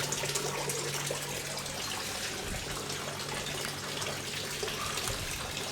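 Garden water feature running, water splashing steadily, with a constant low hum underneath.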